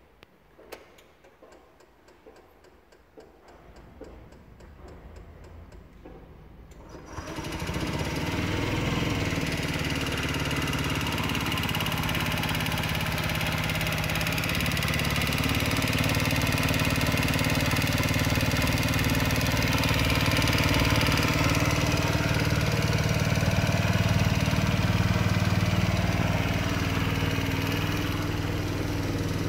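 Honda Dio AF56 scooter's four-stroke, water-cooled engine starting about seven seconds in and then idling steadily.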